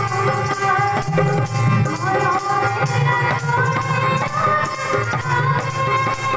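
Odia devotional bhajan: a woman's singing voice amplified through a PA loudspeaker, with hand percussion keeping a steady rhythm.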